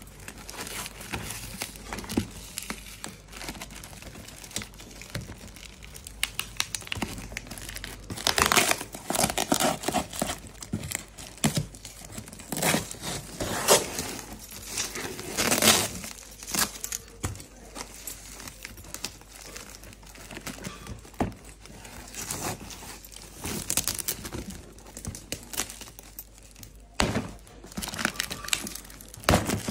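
Packing tape being picked at, peeled and torn off a cardboard shipping box, with crinkling packaging and rustling cardboard. It comes in irregular bouts, loudest about eight to ten seconds in and again around thirteen to sixteen seconds in.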